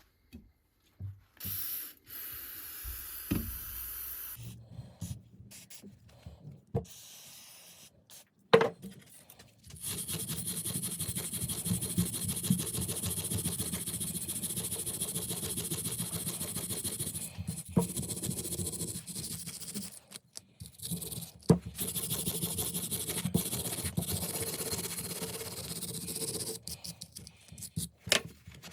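Abrasive rubbing on a hatchet: a steady, rapid scraping that starts about ten seconds in and runs until near the end, after a few scattered knocks and handling clicks.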